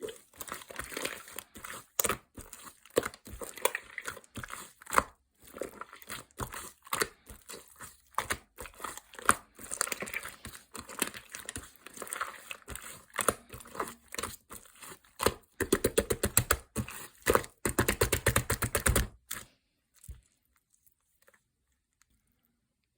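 Hand-made blue lemonade being mixed: a long run of irregular crackles, clicks and rattles. About 15 seconds in it turns to fast, dense rattling for about four seconds, then stops.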